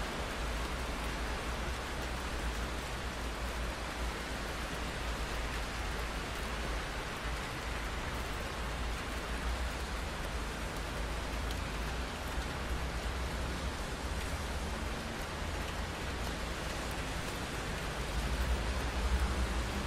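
Steady rain falling on a window pane, an even hiss of drops with a constant low rumble underneath, growing slightly louder near the end.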